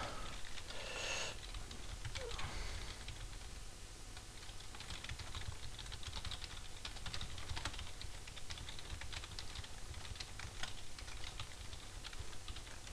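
Typing on a computer keyboard: an uneven run of quick key clicks, thickest in the second half.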